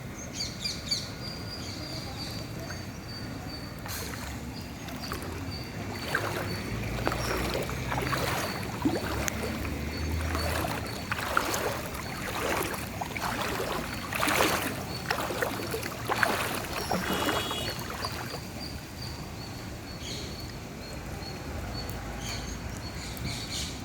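Water splashing and sloshing in a flooded street, busiest through the middle stretch, with a low rumble a few seconds in.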